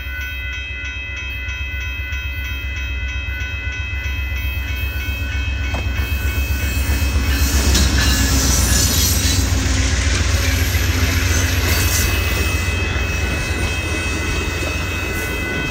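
Amtrak Texas Eagle passenger train approaching and rushing through a grade crossing. Its rumble builds to its loudest about eight seconds in, then eases slightly as the cars pass, while the crossing's warning bell keeps ringing in a steady rhythm.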